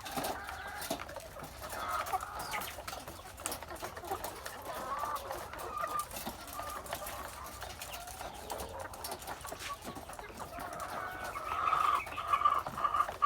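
Flock of laying hens clucking: short calls scattered throughout, with a louder run of clucking near the end.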